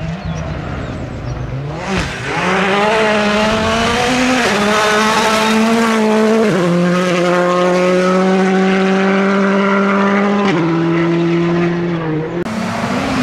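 Rally car engine at high revs, getting louder about two seconds in as the car approaches. Its pitch steps sharply down and up several times at the gear changes.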